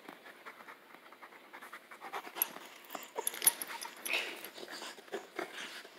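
A puppy and an adult dog play-fighting at close range, panting and mouthing each other, with short clicks and knocks scattered through; the loudest comes about three and a half seconds in.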